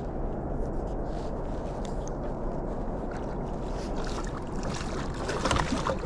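Water splashing and sloshing at the side of a kayak as a hooked bass is fought up to the boat, with a cluster of sharper splashes in the last two seconds over a steady low rumble.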